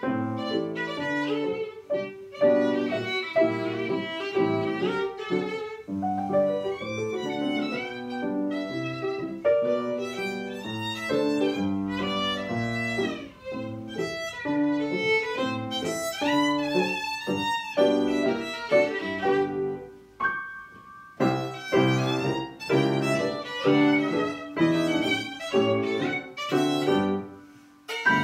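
Violin and grand piano playing a ragtime piece together, the violin carrying the tune over piano chords. The music thins out briefly about two-thirds through, then carries on.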